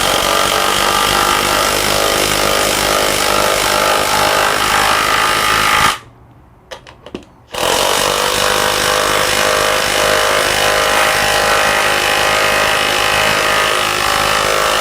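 Klein BAT20-CW 1/2-inch brushless cordless impact wrench hammering as it drives a lag bolt down for about six seconds, then a short pause with a few light clicks, then hammering again as it drives a second lag bolt.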